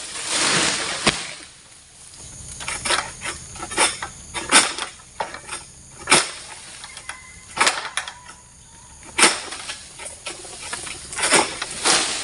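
Long-poled oil palm harvesting sickle (egrek) hacking at the crown of an oil palm: sharp cracks of the blade striking frond and bunch stalk, about ten at irregular intervals, with rustling of fronds in between. The fruit bunch has short stalks wedged against the frond, so it does not come loose.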